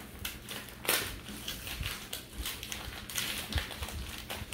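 Gift-wrapping paper rustling and crinkling in irregular short crackles as small wrapped presents are torn open by hand, with one sharper crackle about a second in.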